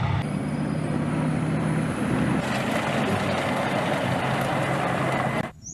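Steady heavy engine rumble of a tank, a low hum under a rushing noise that grows stronger about halfway through and cuts off just before the end.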